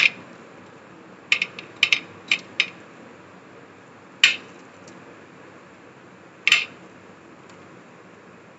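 Crisp toasted sandwich halves being set down and shifted on a serving platter: short clicks and scrapes against the dish, several in quick succession in the first three seconds, then single ones about four and six and a half seconds in.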